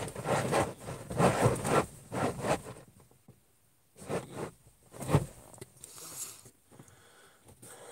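Rustling and scraping handling noise close to a phone's microphone, as a hand and clothing move against it in uneven bursts. There is a short lull about three seconds in, then more bursts about a second later as a hand reaches over the phone to stop recording.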